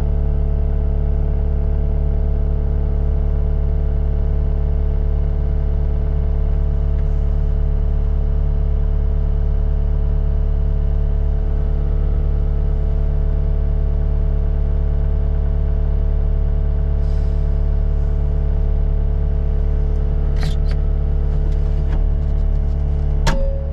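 Heavy diesel engine running steadily at constant speed, with a deep drone and a few sharp clicks near the end.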